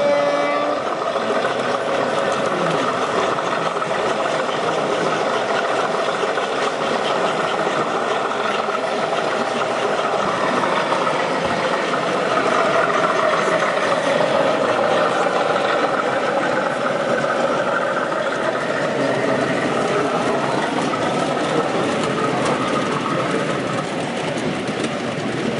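A 7mm-scale model Class 50 diesel locomotive running with a train of coal wagons: a steady diesel engine sound from the sound-fitted model, with the rolling of the wheels on the track.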